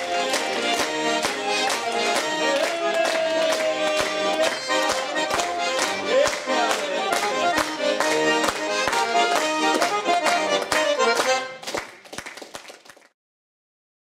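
Russian button accordion (garmon) playing a lively folk dance tune, with a sharp regular beat of claps or taps throughout. The playing fades off near the end and then cuts to silence.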